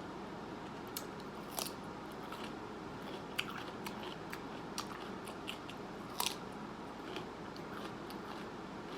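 Close-miked chewing and mouth sounds of someone eating, with scattered short clicks and smacks over a steady faint hiss.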